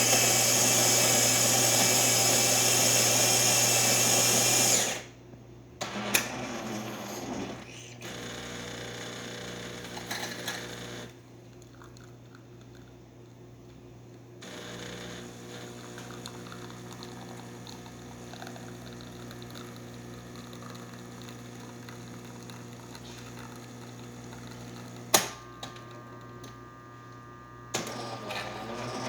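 Jura Impressa F7 super-automatic espresso machine making a shot: its built-in grinder runs loudly for about five seconds, then after a few short mechanical knocks and pauses its pump runs with a steady hum while the espresso brews, with a sharp click near the end.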